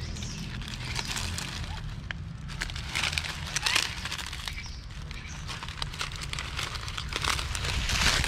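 Dry fallen leaves rustling and crackling in irregular short bursts as a young monkey forages through the leaf litter, over a steady low rumble.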